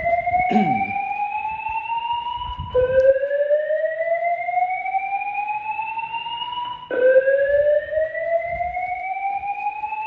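Fire alarm voice-evacuation speaker sounding its slow whoop alert tone: a loud tone rising in pitch over about four seconds, dropping back and repeating, with new sweeps starting about three and seven seconds in. This is the alert part of the cycle that alternates with the spoken evacuation message.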